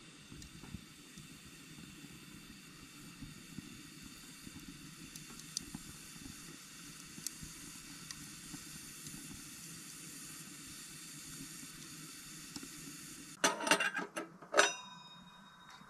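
Wood fire burning in a small steel camp stove's open firebox: a steady hiss with scattered crackles and pops. About three-quarters of the way through come several loud metal-on-metal clanks at the stove top, one leaving a short ringing note.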